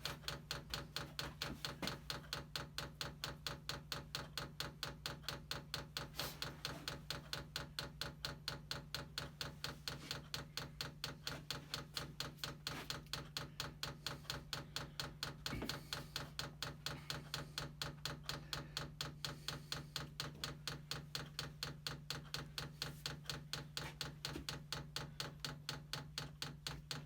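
Diesel heater's fuel dosing pump clicking steadily at about three ticks a second while priming the fuel line, over a steady low hum.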